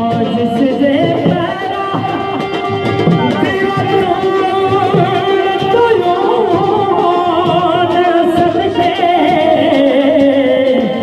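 Live Pothwari folk music: a man singing long, wavering, ornamented notes over a hand drum, with an accompanying instrument.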